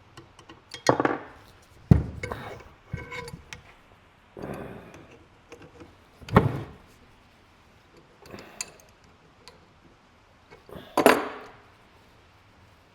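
Metal parts and hand tools clinking and knocking on a workbench, in separate sharp hits, as a sawmill lumber gauge wheel is taken apart.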